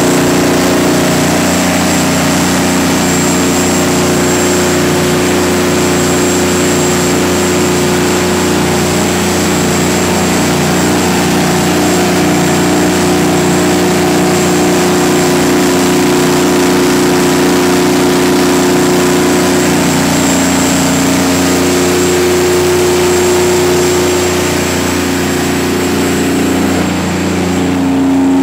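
Detroit Diesel 12V92 two-stroke V12 diesel engine of a 500 kW generator set running at a steady speed under a load test, with a steady high whine over the engine note. The sound dips slightly near the end.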